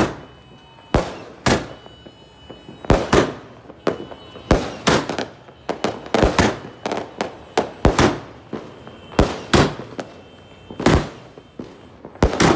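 A 20-shot fireworks cake firing aerial shells: a rapid, irregular string of sharp bangs, about one or two a second, each with a short echoing tail.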